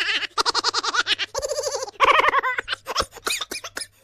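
A laughing sound effect: a voice laughing in rapid pulses, with a held note in the middle and quick choppy bursts later on.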